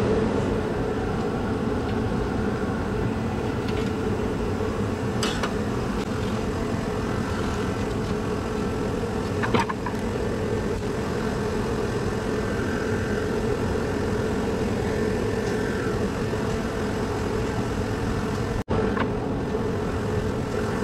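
Steady mechanical hum, with a few brief clicks and knocks as metal-cased hybrid battery modules are handled and lifted out.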